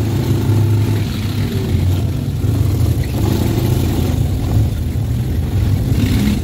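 Quad bike (ATV) engine running steadily while riding.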